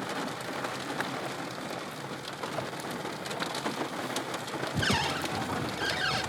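Heavy rain falling, a dense hiss of many small drop hits, with two short falling squeaks near the end.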